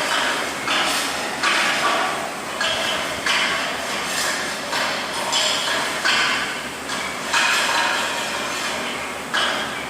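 TIG welding arc hissing and crackling in a regular pulse. It surges sharply and fades about three times every two seconds.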